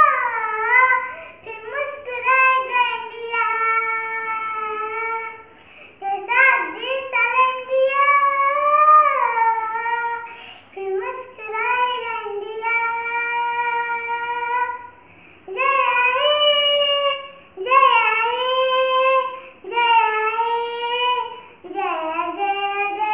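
A young girl singing solo and unaccompanied, in phrases of long held and gliding notes with short breaks between them.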